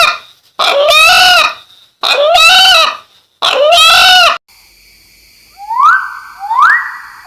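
A bird calls loudly four times in a row, about once a second. Each call is about a second long and rises then falls in pitch; the title hears it as saying the name of Allah. A little past halfway the calls stop, and an electronic music tone takes over, swooping up three times into held notes.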